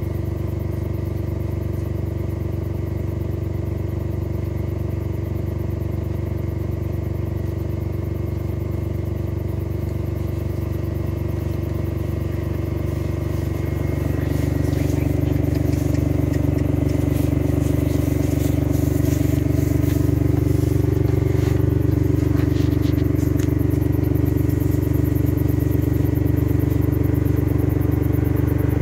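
Small utility vehicle's engine running with a steady drone; about halfway through it gets louder and its note shifts, with scattered clicks and rattles over the middle part.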